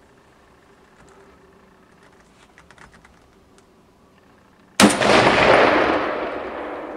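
A single loud shot from a Remington 740 semi-automatic .30-06 rifle about five seconds in, its report echoing and fading away over the last two seconds.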